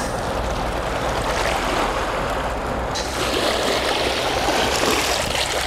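Sea waves washing onto the shore, with wind rumbling on the microphone; the surf turns louder and hissier about halfway through.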